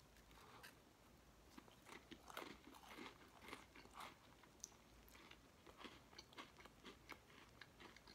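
Faint, close chewing and crunching of an MRE cracker spread with peanut butter, a run of small irregular crunches.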